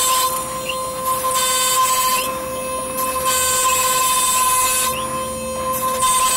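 CNC router spindle running with a steady high whine while its end mill cuts a jali pattern through MDF; a hissing cutting noise comes and goes several times as the bit travels along the pattern.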